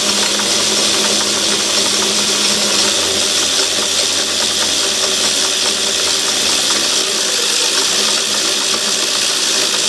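Myford ML7 lathe running steadily in reverse, its change gears and leadscrew driving the carriage back to return the threading tool for the next screw-cutting pass. It runs with a steady mechanical rattle, and its low hum shifts lower about three seconds in.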